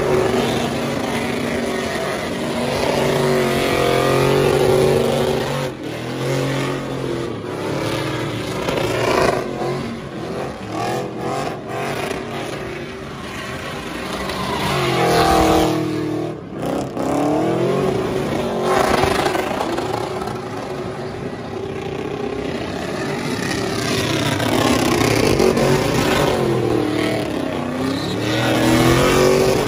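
Pickup truck engines held at high revs, the pitch rising and falling over and over as the trucks spin donuts, with spinning tires hissing underneath.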